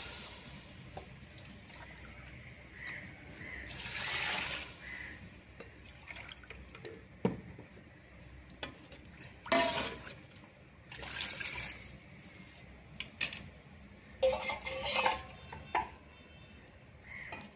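Liquid splashing and sloshing in a large steel cooking pot of curry, in several bursts about a second long, with sharp clinks of steel utensils and lids in between.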